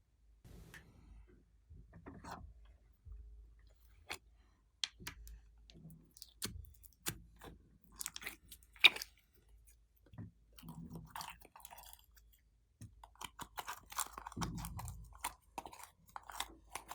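Glossy slime being squished, pressed and stretched by hand, giving irregular sticky clicks, pops and squelches, with one sharp pop about nine seconds in.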